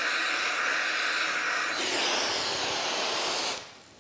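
Oxy-fuel torch flame hissing as it heats a seized nut red-hot to break it loose, changing in tone about two seconds in, then cut off suddenly just before the end.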